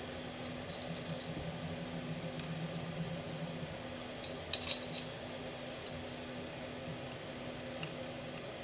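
A few light metallic clinks of hand tools being rummaged through in search of an Allen wrench: a small cluster about halfway through and one sharp clink near the end, over a steady low hum.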